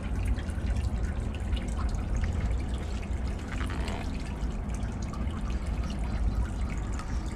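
Low, uneven rumble of wind buffeting the microphone, with a few faint rustles and clicks from hands handling plastic packaging and a small plastic accessory.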